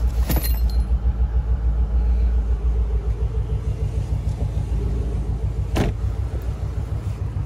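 A motor vehicle's engine running with a steady low rumble. There is a brief sharp click or knock just after the start and another near six seconds.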